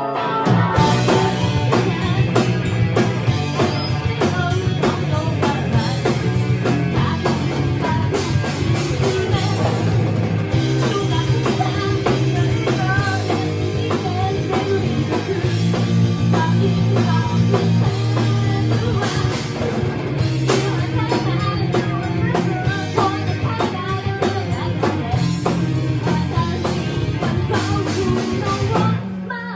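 Live rock band playing: electric guitars and a drum kit, with a woman singing over them. The music breaks off briefly just before the end.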